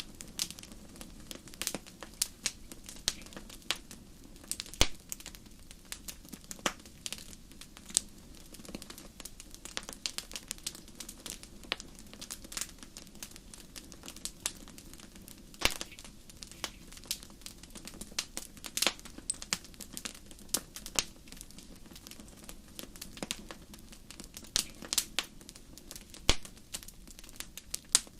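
Wood fire burning in a fireplace, crackling with frequent irregular pops and snaps over a faint low hiss.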